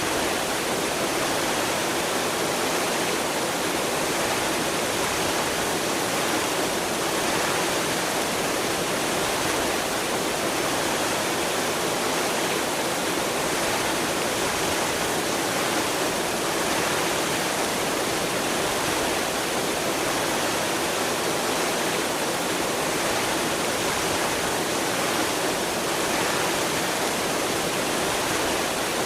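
Water fountain splashing: a steady, even rush of falling water that holds the same level throughout.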